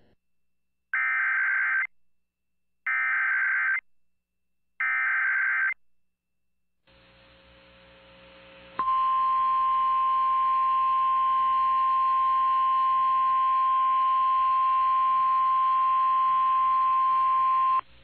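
Emergency Alert System activation on FM radio. Three harsh, buzzing SAME header data bursts of about a second each, a second apart, announce a tornado warning. After a short gap comes a steady single-pitch NOAA Weather Radio attention tone, about 1050 Hz, held for about nine seconds.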